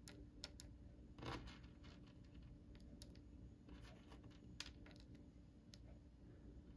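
Near silence with faint, scattered small clicks and taps: tiny plastic miniature popcorn pieces being handled and set into place.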